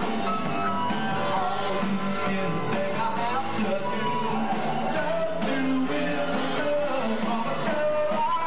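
Live rock band playing a rock-and-roll song: electric guitars, bass and drums, with a lead vocal over them.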